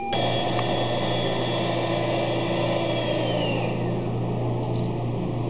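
Homemade electronic sound circuit giving a steady, noisy electronic drone: a low hum under a hiss, with a high tone that slides down in pitch about three to four seconds in.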